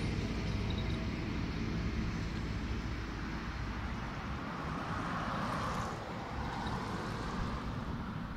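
Outdoor road-vehicle noise: a steady low engine rumble, with a vehicle passing that swells and fades about five to seven seconds in.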